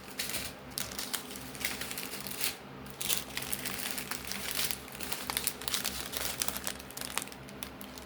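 Small plastic bags of diamond-painting drills crinkling and rustling as they are handled and sorted, with many short crackles throughout.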